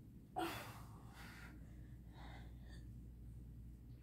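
A woman's hard breathing from the effort of doing crunches: a sharp gasping breath about half a second in, a softer breath just after, then faint breaths.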